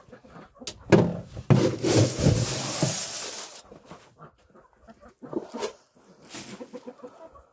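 Scratch grain being scattered for poultry: a rushing hiss of pouring grain lasting about two and a half seconds, followed by a few soft rustles and taps.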